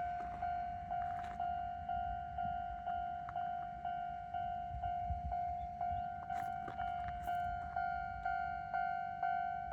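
Japanese railway level crossing's electronic warning bell ringing, one tone struck about twice a second, each strike fading before the next. A low rumble runs underneath, with a couple of sharp clicks about six and seven seconds in.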